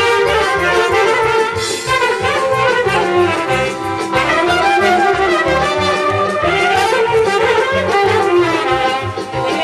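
Live Balkan brass band with accordion playing a lively dance tune: horns carry the melody over a pulsing bass beat.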